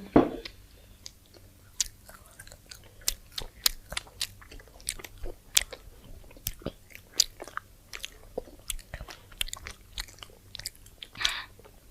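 People biting and chewing crunchy food close to the microphone: irregular sharp crunches, several a second. A loud bump sounds right at the start.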